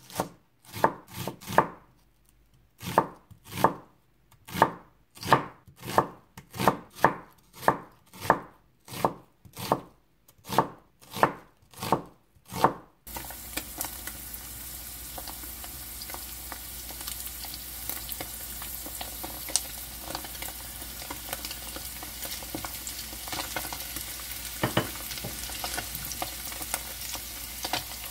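Knife chopping green onion on a cutting board in steady strokes, about two a second with a couple of short pauses. About halfway through it gives way to a steady sizzle of browned tofu in a frying pan as sliced onion and green onion are added for braising.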